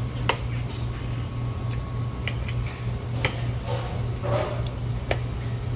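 A metal fork clicking against a plate about four times while salad is eaten, over a steady low hum.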